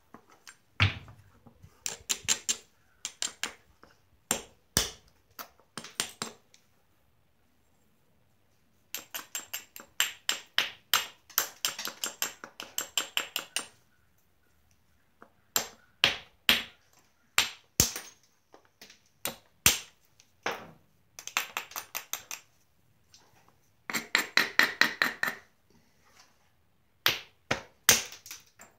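Flintknapping a Georgetown flint biface with a small billet: runs of quick, light clicking strokes against the stone's edge, several a second, broken by pauses and a few single sharper strikes.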